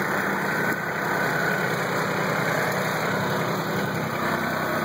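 Kubota tractor's diesel engine idling steadily at an even pitch.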